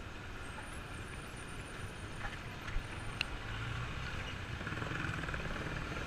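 Bajaj Pulsar's single-cylinder engine running as the motorcycle rides slowly, with road and wind noise, recorded by a GoPro mounted on the bike. A couple of short clicks about halfway through.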